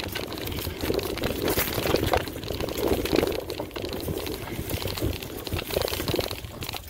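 Mountain bike being ridden over a rough dirt trail: uneven rumble and rattling clicks from the bike, with wind buffeting the microphone.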